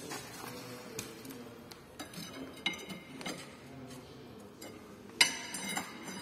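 A steel hand tool clinks and knocks against the front suspension of a BMW X3 (E83), with short metallic rings. The loudest is a sharp ringing clank about five seconds in.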